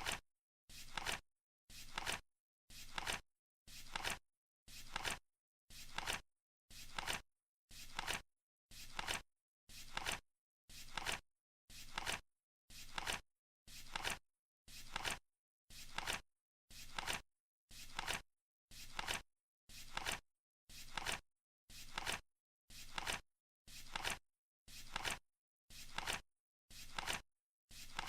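Countdown timer ticking steadily once a second, each tick a short double click.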